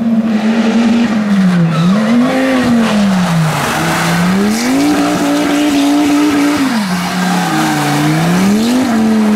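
Audi Quattro rally car's five-cylinder engine revving up and dropping back again and again as the car drifts sideways through a hairpin, with its tyres squealing on the wet tarmac.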